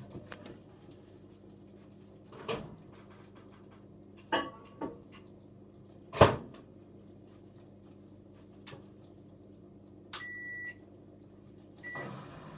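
Hotpoint WMA34 washing machine draining: its drain pump hums steadily while the drum gives a few knocks, the loudest about six seconds in. A short electronic beep sounds about ten seconds in, and a second starts near the end.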